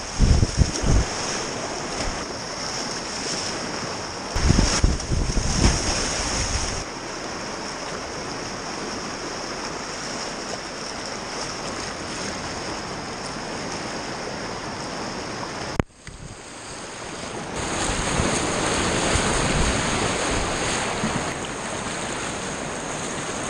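Whitewater rushing around a kayak running river rapids, with wind buffeting the microphone in low gusts about a second in and again around five seconds in. The sound cuts out for an instant about sixteen seconds in, then the rushing grows louder for a few seconds.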